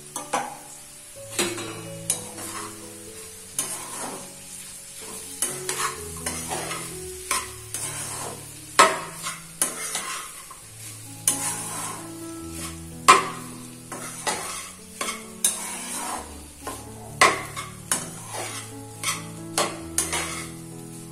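A utensil stirring and knocking irregularly against a pan as boiled quinoa stir-fries, over a steady sizzle. Soft background music with held low notes plays underneath.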